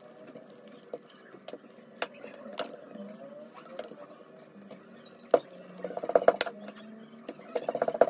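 Wooden rolling pin rolling dough out flat on a countertop: a low rolling rumble with irregular clicks and knocks as the pin moves back and forth, busiest about six seconds in and again near the end.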